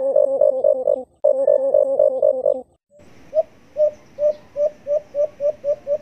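Recorded calls of the alimukon (white-eared brown dove), played as a bird-trapping lure: a fast run of low hooting notes with a short break about a second in, stopping just under three seconds in. After a moment a slower series of single hoots begins and speeds up toward the end, over a faint hiss.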